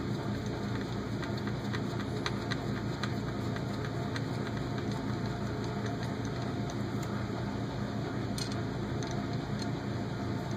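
Small screwdriver driving screws through an aluminium motor-mount plate into a transmission case: a few faint light ticks, mostly in the first three seconds and one sharper click later on, over a steady background hum.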